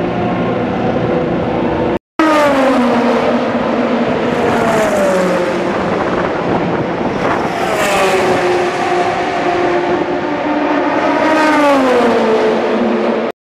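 Racing cars passing at speed along the main straight, three times. Each engine note drops sharply in pitch as the car goes by, with a steady engine drone in between. The audio cuts out for an instant about two seconds in.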